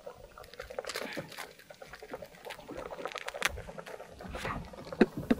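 Pot of fish at a rolling boil, bubbling with irregular pops and crackles, and a couple of sharper knocks about five seconds in.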